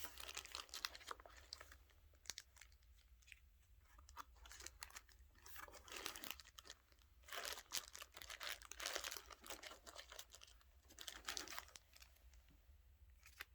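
Faint crinkling and tearing of packaging being handled and opened, in several short bouts of crackles and clicks with quiet gaps between.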